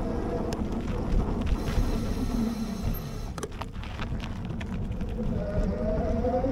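Riding an e-bike over rough, cracked pavement: a steady rumble of wind on the action camera's microphone and tyre noise, with sharp rattles and knocks as the bike hits bumps. A faint whine rises in pitch near the end.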